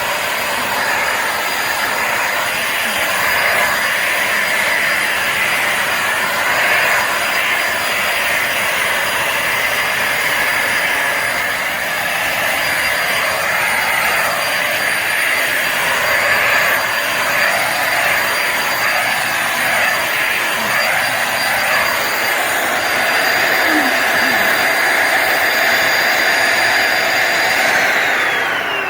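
Bissell Symphony Pet vacuum and steam mop's vacuum motor running steadily with a high whine. Near the end it is switched off and the whine falls in pitch as the motor spins down.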